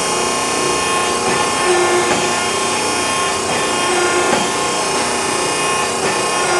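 Sandt 20-ton hydraulic clicker press running under load: a steady hum and whine from its electric pump motor and built-in phase converter, with a few light knocks.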